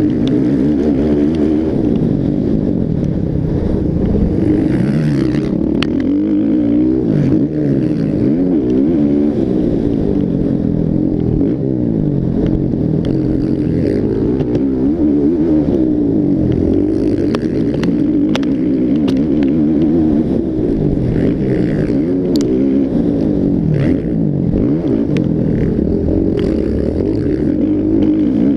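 Several motocross bike engines revving up and down over one another as the bikes race round the track, with a few short sharp clicks among them.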